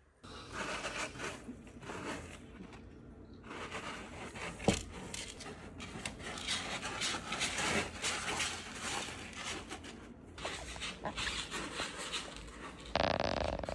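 Kittens scratching and digging in pellet cat litter: gritty scraping with many small clicks, and one sharp knock about four and a half seconds in. Near the end comes a brief high-pitched sound.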